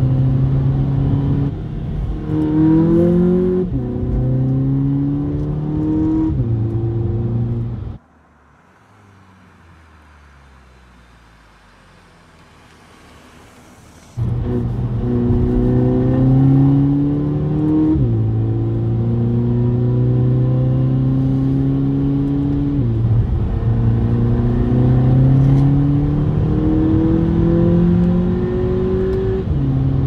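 Volkswagen Polo GTI's 2.0 TSI turbocharged four-cylinder engine, heard from inside the cabin, pulling hard through the gears: the note climbs in each gear and drops at each upshift. About a third of the way in the sound falls much quieter for some six seconds before the engine comes back loud.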